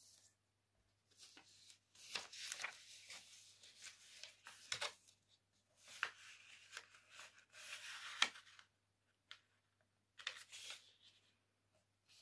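A sheet of paper being folded by hand: it rustles and crinkles as it is moved and as the creases are pressed and run flat with the fingers. The sound comes in several short bouts with pauses between.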